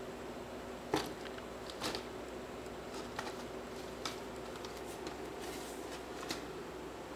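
Kitten's paws scratching and tapping at a paper-pulp egg-tray cat house: scattered scrapes and clicks, the sharpest about a second in.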